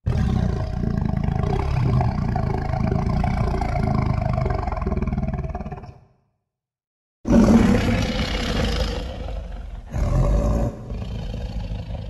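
Designed Ichthyovenator dinosaur roar, made from layered and altered animal recordings: a long, low roar of about six seconds, then after a short pause a second roar that starts at its loudest, swells again briefly about three seconds later and then tails off.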